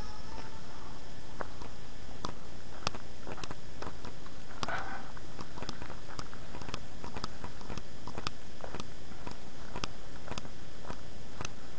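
Footsteps on a leaf-littered woodland path: irregular small crackles and snaps of twigs and leaves underfoot, over a steady low background noise.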